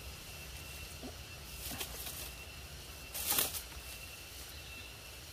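A hooked tilapia thrashing and splashing at the water's surface as it is reeled to the bank: a short splash about a second and a half in, and a louder one a little after three seconds.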